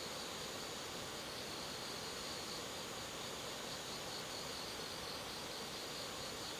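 Insects chirring in rapid, evenly spaced high pulses, with a steady thin high drone underneath.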